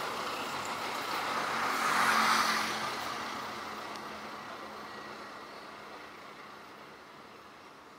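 Passenger train's coaches rolling away on the rails. The wheel-on-rail noise swells briefly about two seconds in, then fades steadily as the train draws off.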